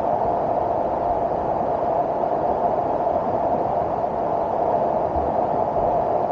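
Waterfall: water pouring down in a steady, even rush.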